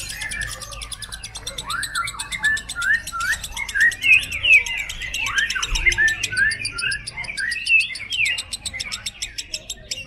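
Yellow ('padi') lovebird ngekek: a long, unbroken run of rapid chirps and squeaky sweeping notes, loudest around the middle, with a fast, even high ticking running above it.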